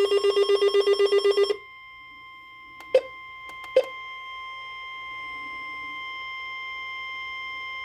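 NOAA Weather Radio alert tones: a rapid buzzy pulsing alert sounds for about a second and a half. After two sharp clicks, the steady 1050 Hz warning alarm tone comes on and holds, the signal that a warning message is about to be read.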